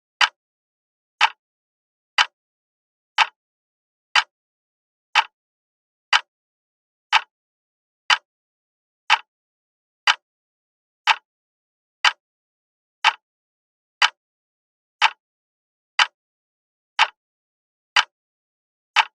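Alarm clock ticking: one short, sharp tick about every second, evenly spaced, with silence between ticks.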